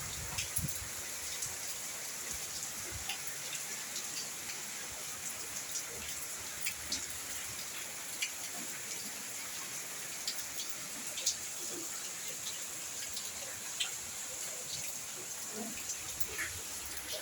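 Steady rain hissing, with individual drops striking close by as scattered sharp ticks at irregular intervals.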